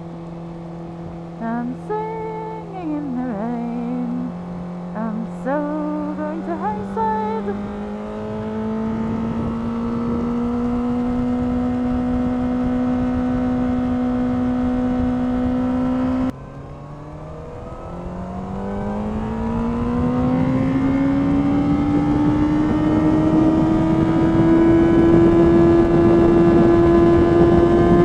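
Honda CBR600RR inline-four engine running under a rider on a wet track, held in second gear. Its note rises slowly and holds, breaks off suddenly about sixteen seconds in, then climbs again to a higher steady pitch under growing wind and spray noise. A few short wavering tones sound in the first seven seconds.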